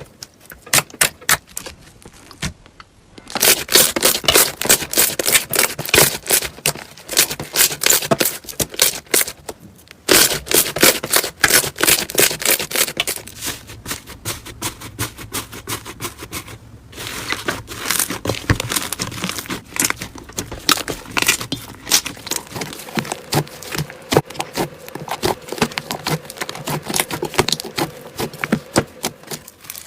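Slime being squeezed and worked by hand, making dense crackling and popping clicks, with a few short breaks between handfuls.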